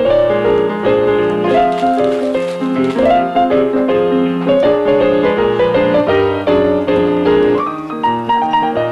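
Background music led by piano, a run of notes at a steady lively pace.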